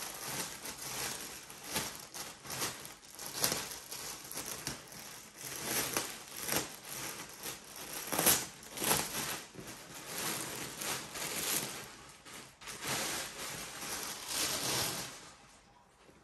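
Clear plastic bag crinkling and rustling unevenly as hands pull it open and off a folded coat. The crinkling stops shortly before the end.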